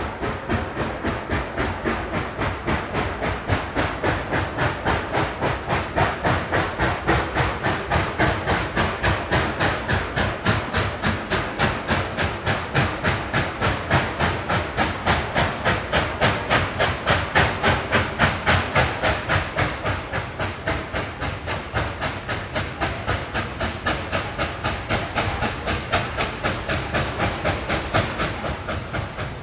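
Reading 2102, a 4-8-4 steam locomotive, working under steam with a steady rhythmic exhaust chuff. The beats come gradually faster as it picks up speed and are loudest about two-thirds of the way through.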